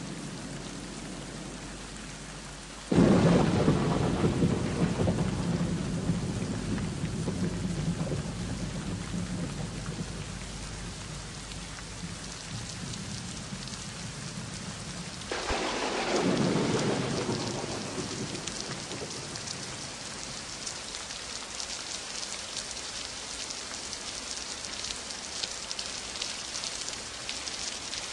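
Thunderstorm: steady rain with two claps of thunder, a loud one about three seconds in and a second at about fifteen seconds, each rumbling away over a few seconds.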